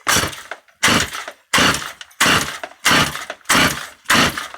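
Stihl MS170 two-stroke chainsaw being pull-started on full choke with a newly fitted aftermarket carburettor: seven quick pulls of the recoil starter, each a rasping whirr of rope and cranking engine that dies away, the engine not yet running.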